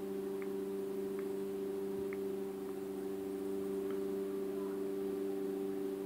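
Steady electrical hum. Over it, faint short ticks about once a second in the first few seconds, the key-press sounds of a Samsung Galaxy Grand Neo's on-screen keyboard as a search word is typed.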